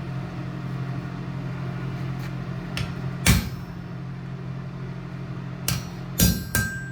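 Hammer blows on steel at the anvil: one sharp blow about three seconds in, then three more in quick succession near the end, the last ones ringing. A steady low hum runs underneath.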